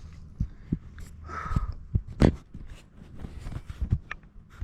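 Irregular scuffs and knocks of a person moving about, with a short breath about a second and a half in and a sharp knock about two seconds in.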